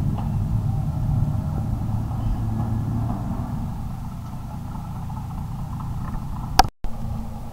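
Boat engine running with a steady low hum that eases off slightly partway through. Near the end there is a sharp click and a brief dropout.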